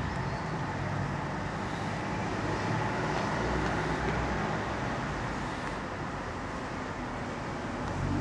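Steady street traffic noise: the hiss and rumble of passing road vehicles.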